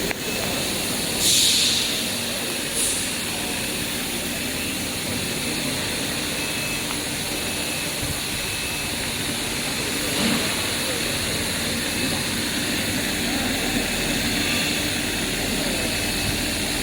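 Endless diamond wire loop saw running steadily as it cuts through a silicon rod, a continuous mechanical hum and whir. Two brief hisses come about a second in and again a couple of seconds later.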